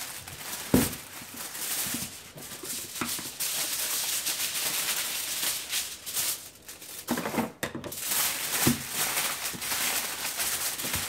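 Aluminum foil crinkling and rustling as it is folded and pressed tightly around a burrito in layers, with a sharp knock about a second in.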